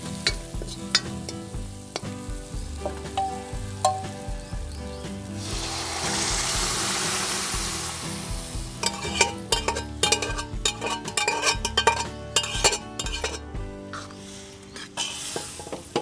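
Masala sizzling in oil in an iron kadhai while a steel ladle clinks and scrapes against the pan. About five and a half seconds in, boiled chana dal and lauki are poured into the hot masala, giving a loud hiss of steam for about three seconds. Rapid clinks and scrapes of the ladle stirring the dal follow.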